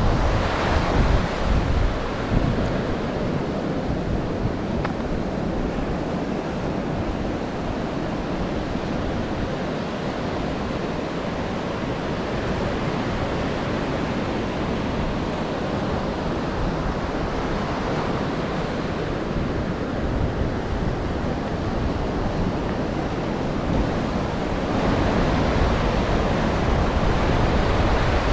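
Ocean surf washing onto a beach, with wind buffeting the microphone. The surf swells louder about a second in and again near the end.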